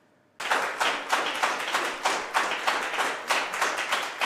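A small audience applauding, many separate hand claps, starting suddenly about half a second in.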